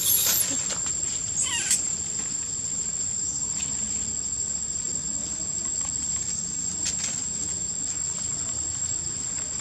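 Macaque squealing shrilly twice in the first two seconds, the second call falling in pitch, over a steady high-pitched insect drone.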